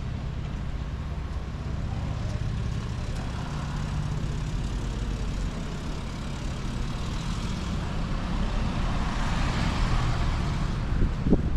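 Street traffic: a steady low rumble of a vehicle, with a swell of passing vehicle noise that builds and fades between about seven and eleven seconds in, and a short sharp knock near the end.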